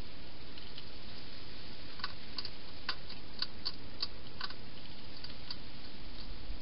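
Hedgehog eating from a bowl: a run of about ten sharp, irregular chewing clicks, mostly in the middle, over a steady hiss.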